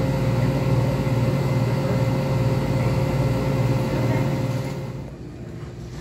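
A steady low mechanical hum with a faint constant tone above it, which drops away about five seconds in.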